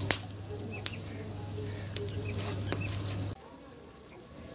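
Wood fire in a clay stove crackling, with a few sharp pops and clicks, the first the loudest. Under it a low steady hum cuts off suddenly about three and a half seconds in.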